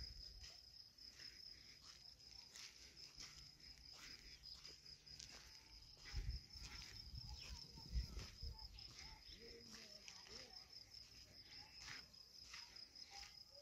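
Faint, steady, high insect trill, pulsing evenly and without a break, over faint scattered crunching footsteps. There is a dull low thump about six seconds in and another about eight seconds in.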